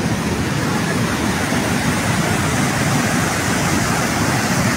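Steady rushing of a muddy flash-flood torrent, a mountain stream in spate after sudden torrential rain.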